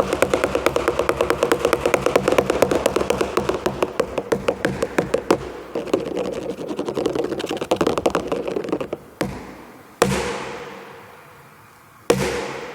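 A watermelon being drummed on by hand in a rapid, even run of hollow taps with a steady pitch. Near the end come three single hard slaps on the melon, each ringing out with a long echo from a big room.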